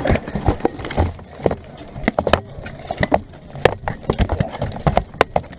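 Irregular, rapid knocks and clanks of weapons striking wooden shields, helmets and plate armour in a close melee.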